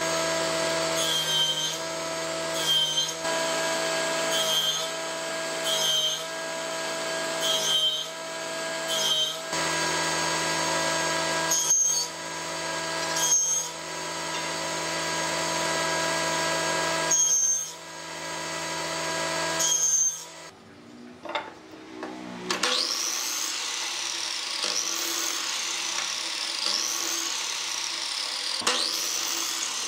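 A table saw runs steadily while a piece of wood is fed across the blade again and again, with a cut about every second or so. About 20 seconds in, the saw stops. A miter saw then makes a quick series of repeated chops into wood, its pitch rising and dipping with each cut.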